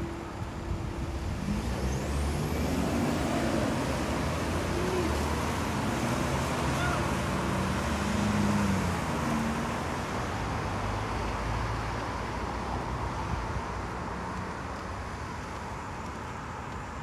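Road traffic with a vehicle passing: a steady rumble that swells to its loudest a little past the middle and then slowly fades away.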